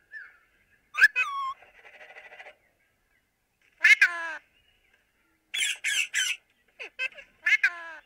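Parakeets calling: single calls about one and four seconds in, a quick run of three about six seconds in, then two more near the end.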